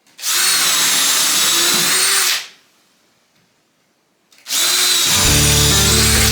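A power tool running at a steady whine in two bursts of about two seconds, with a short pause between. Guitar music comes in near the end.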